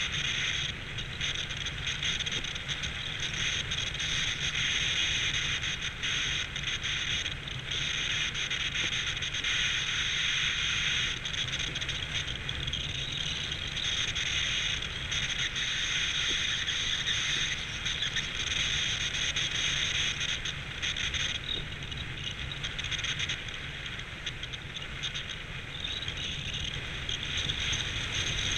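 Steady wind noise over the microphone during a descent under a parachute canopy: a continuous hiss over a low rumble, with a few brief dips.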